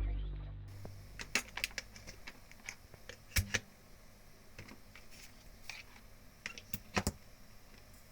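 The last of the guitar music dies away, then a scatter of faint, irregular light clicks and taps, the loudest about three and a half and seven seconds in.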